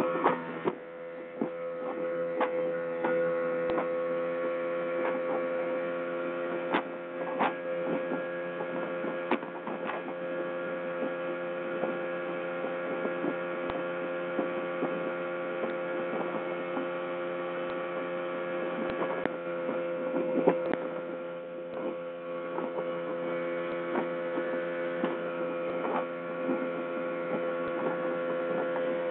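Speedboat engine running at a constant speed, a steady hum, with irregular short knocks scattered throughout.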